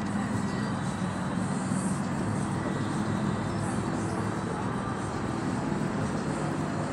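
Steady low hum and rumble with an even background hiss, unchanging throughout.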